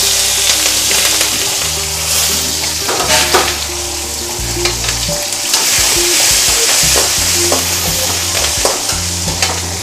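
Chopped green chillies sizzling loudly in hot ghee and oil in a kadai, a tempering with cumin, dals and cashews, while a metal spatula scrapes and clicks against the pan as they are stirred.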